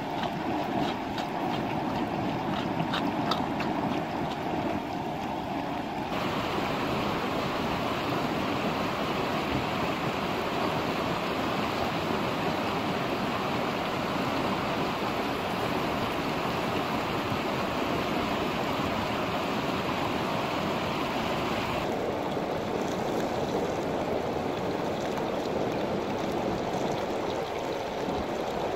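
Steady rushing noise of running water, with a few light clicks in the first few seconds. The sound changes abruptly about six seconds in and again a little past twenty seconds.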